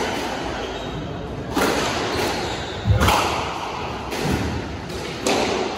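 Squash rally: a rubber squash ball cracked by rackets and hitting the court walls, about four sharp knocks a second or so apart, echoing in the court. The loudest, near the middle, is a heavier thud.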